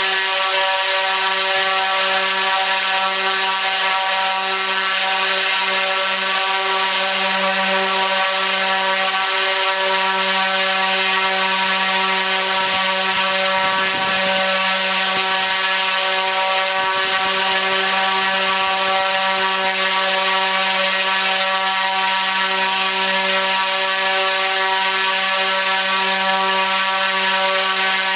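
T-Motor U13 100kV brushless motor spinning a 29-inch three-blade carbon propeller at full throttle: a steady, unwavering drone with a strong low hum and a stack of whining overtones over a rush of air from the prop.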